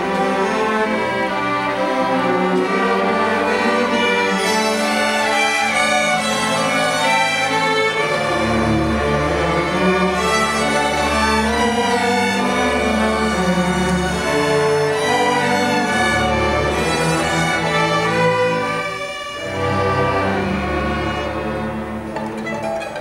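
String orchestra of violins and cellos playing a bowed passage. Deep low notes come in about eight seconds in, and the playing thins out briefly a few seconds before the end.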